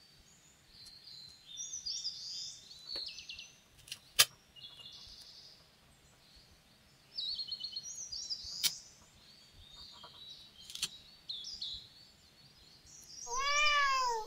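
Small paper cutouts rustling and scraping as they are picked up and placed with steel tweezers, with a few sharp ticks of the tweezer tips, the loudest about four seconds in. Near the end, a short pitched sound effect rises and falls.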